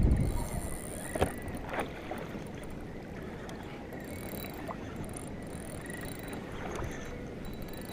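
Steady water and wind noise around a fishing kayak, with two light knocks about a second in and faint short high chirps recurring every second or so.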